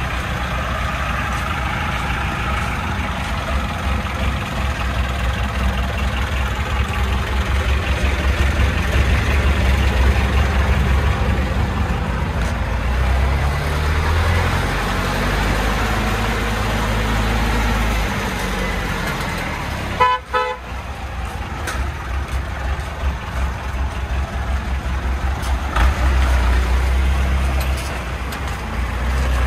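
Small dump truck's engine running as the truck manoeuvres slowly, with the engine note rising and falling in places. A short horn toot sounds about two-thirds of the way through.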